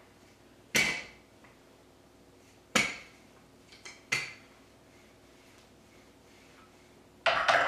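Wooden rolling pin knocking against a granite countertop while puff pastry is rolled out: single sharp knocks about a second in, near three seconds and around four seconds, then a quick clatter of several knocks near the end.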